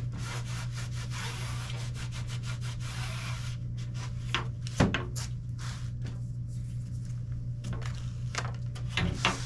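Hand scrubbing along the edge of a fiberglass boat hatch cover, cleaning the surface around drilled-out holes before they are filled with epoxy. The strokes are quick and even for the first few seconds, then slower and sparser. A sharp knock comes about halfway through, and a few clicks come near the end.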